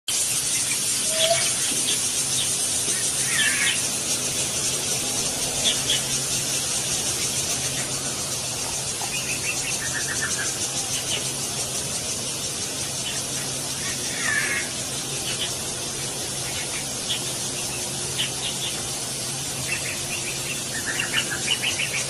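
Weaver birds giving short, buzzy, chattering calls every few seconds, over a steady high-pitched hiss.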